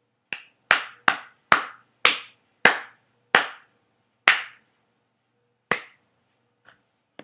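One person clapping their hands about ten times, at first quickly, then with longer gaps. The last two claps are faint.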